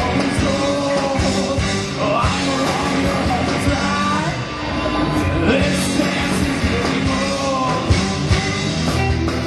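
Live rock band playing loudly: distorted electric guitars, bass guitar and a pounding drum kit, with a singer's voice over the top.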